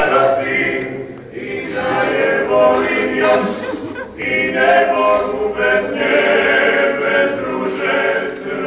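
Klapa group singing a cappella in several-part harmony, with short breaks between phrases about a second in and again around four seconds.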